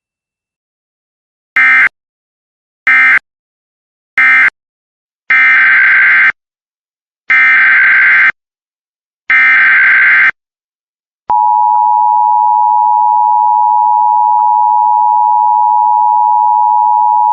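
Emergency Alert System data bursts and attention signal. Three short warbling data bursts (the end-of-message code closing one alert) are followed by three longer warbling bursts (the header of the next alert). About eleven seconds in, the steady, loud EAS attention-signal tone starts and holds.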